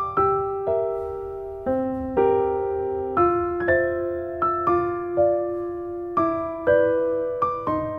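Background music: gentle electric piano notes struck about twice a second, each fading before the next.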